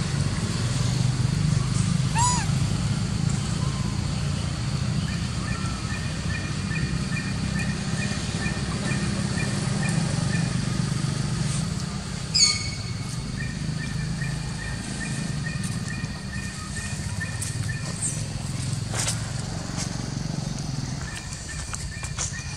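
Outdoor ambience: a steady low rumble with scattered high chirps and a thin trilling call, the loudest a short sharp squeak about twelve seconds in.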